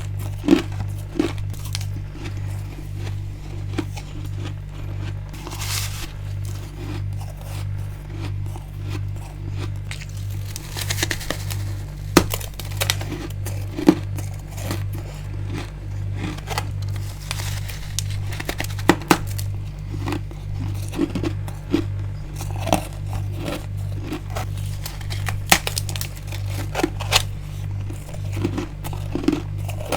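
Bites and chewing of freezer frost and ice: crisp crunching and crackling with scattered sharp cracks, over a steady, evenly pulsing low hum.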